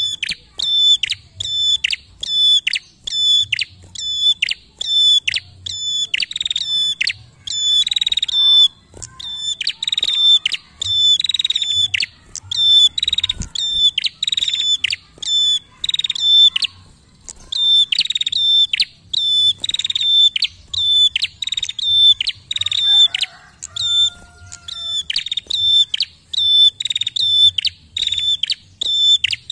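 Caged prenjak singing continuously: a fast run of sharp, high, repeated notes, about two a second, each dropping onto a short held whistle, in bursts with a few brief pauses.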